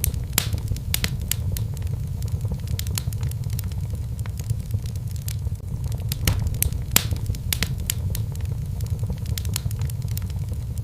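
Wood fire burning in a fireplace: a steady low rumble of the flames with irregular crackles and pops, the sharpest pops a little past the middle.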